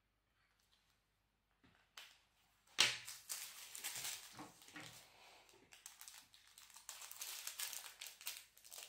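Small plastic bag of square diamond-painting drills crinkling in the hand, with a rapid patter of tiny clicks as the drills are shaken and poured into a small plastic cup. It starts after a couple of quiet seconds with a sharp click about three seconds in.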